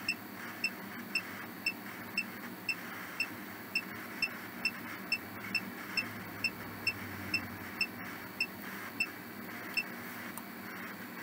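Ghost-hunting app on a phone giving a steady run of short, high beeps, about two a second, over a constant hiss; the beeps stop near the end.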